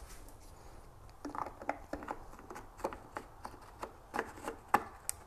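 Light plastic clicks and taps of hands working an LED bulb into a New Edge Mustang headlight housing: a dozen or so short, irregular clicks starting about a second in, the sharpest near the end.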